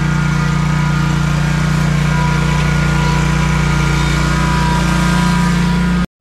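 Toro GrandStand HDM stand-on mower's engine running at a steady speed as the mower drives past. The sound cuts off suddenly near the end.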